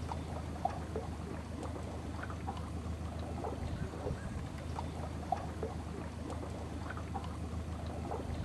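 Small waterfall of dark river water spilling over rock ledges: a steady rush with a low rumble and many small gurgles and splashes.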